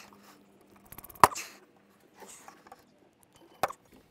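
Handling noises while a new mower and its packaging are worked loose from a crate: faint scuffing, a short rattle just before a second in, and two sharp clicks, the loudest about a second in and another near the end.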